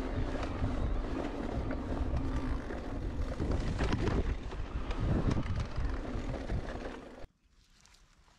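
Wind buffeting an action-camera microphone, with tyre rumble and clatter from a mountain bike riding a trail. The noise cuts off suddenly about seven seconds in.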